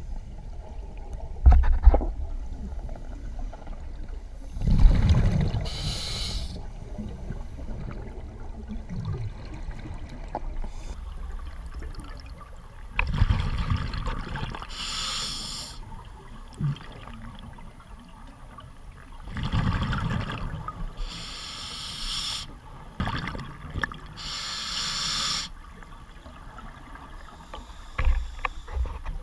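Scuba regulator breathing heard underwater: a low bubbling rumble of exhaled bubbles followed by a hiss of inhalation, about four breaths, with a few short knocks near the start and near the end.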